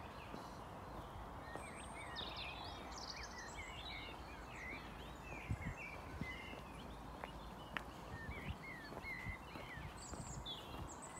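Several small songbirds singing, a busy run of short, varied chirps and trills, over a steady low outdoor background noise with a few faint soft knocks of footsteps.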